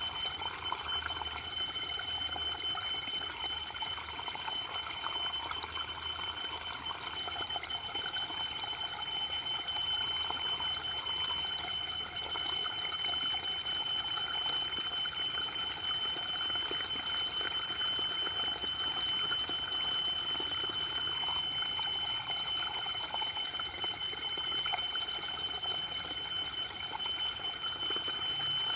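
Waterfall, water falling and splashing in a steady, unbroken rush. Two thin, high-pitched tones are held steady throughout.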